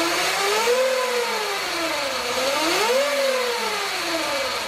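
Sur Ron Light Bee MX electric motor and freshly fitted 420 X-ring primary drive chain spinning the raised rear wheel. It makes a loud whine that rises and falls twice as the throttle is worked, easing off near the end.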